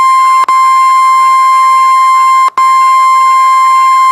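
NOAA Weather Radio 1050 Hz warning alarm tone: a loud, steady, high single-pitched beep, broken by two very short dropouts, about half a second in and again about two and a half seconds in. The tone alerts receivers that a watch or warning broadcast follows.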